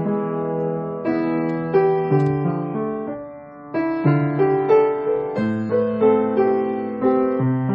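Background music: a gentle piano melody of single notes, with a brief pause about three seconds in.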